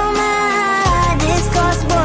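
Background pop music: a melodic lead over a beat, with the bass dropping out for about the first second and then coming back in.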